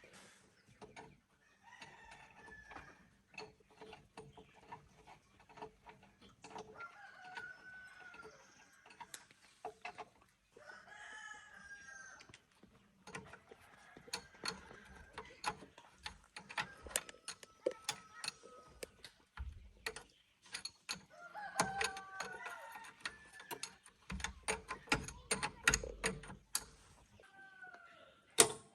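Chickens clucking and calling, with what sounds like a rooster crowing, over frequent sharp clicks and knocks.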